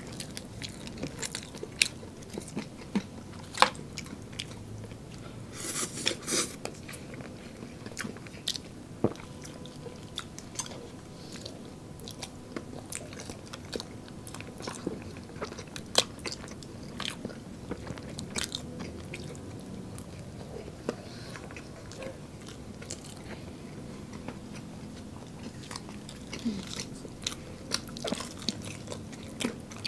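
Close-miked eating: two people chewing and biting into crispy fried chicken nuggets and fried chicken, with sharp crunches scattered irregularly over steady chewing and a short cluster of louder crunches about six seconds in.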